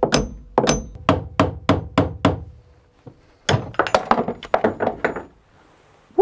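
Hammer blows on a rusted steel steering arm clamped to a sailboat's rudder stock, each with a short metallic ring, to drive off the seized arm. About eight blows at roughly three a second, a pause of about a second, then a quicker run of about eight more.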